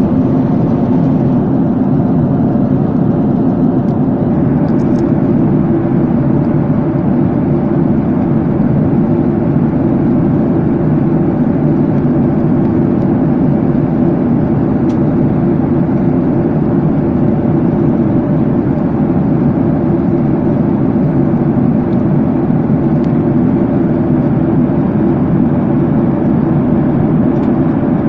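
Steady cabin noise of a Boeing 737-800 airliner at cruise: the even rumble of its jet engines and the airflow, heard from inside the cabin, with a faint steady hum.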